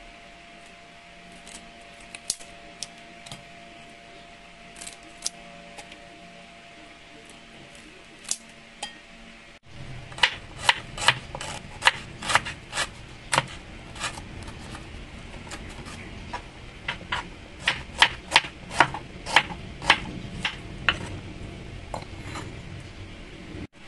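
A few scattered light clicks over a faint steady hum. From about ten seconds in comes a kitchen knife slicing galangal and ginger on a wooden cutting board, a sharp knock with each cut, about two to three a second.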